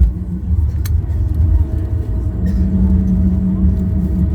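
Airliner cabin noise during the landing roll or taxi: a steady low rumble of the engines and airframe. A steady hum joins it about two and a half seconds in.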